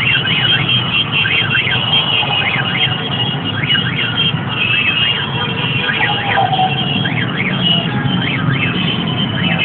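Dense street crowd making a steady din, with many high, quick up-and-down whooping sweeps repeating irregularly and overlapping above it.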